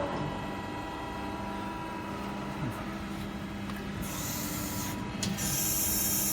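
CNC servo press brake running: a steady machine hum, with two stretches of high hiss starting about four and five and a half seconds in.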